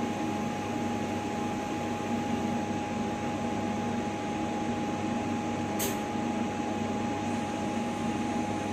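Laser powder-bed fusion metal 3D printer running: a steady mechanical hum with a constant high whine, and a brief tick about six seconds in.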